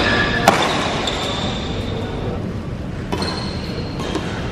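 Badminton rackets striking a shuttlecock during a rally: a sharp smack about half a second in and a lighter one around three seconds, over steady hall noise.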